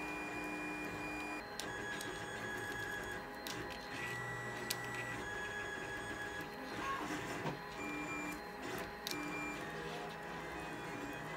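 3D printer's stepper motors whining at a series of steady pitches that change every second or so, with scattered light clicks.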